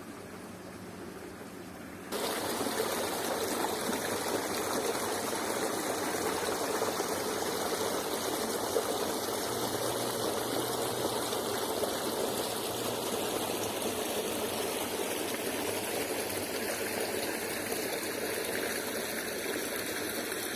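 Running water, like a stream flowing steadily, which comes in suddenly about two seconds in after a fainter hiss.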